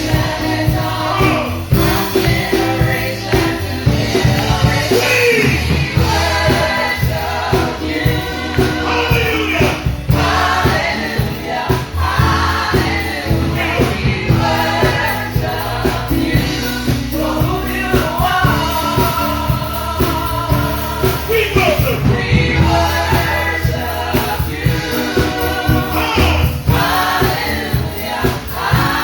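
Gospel choir singing with a live band; bass notes and drums keep a steady beat.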